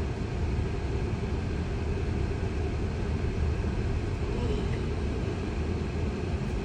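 Steady low rumble of road and tyre noise inside a Tesla's cabin while the car is moving.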